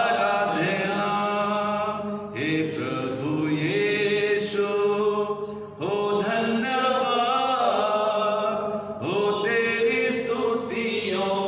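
A man singing a slow Hindi Christian hymn of thanksgiving, holding long notes in phrases that break for breath about every three seconds.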